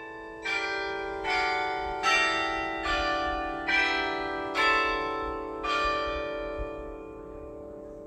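Bells struck one after another, about seven notes of different pitch roughly one every second, each ringing on over the next, then the last ones die away in a long fading ring.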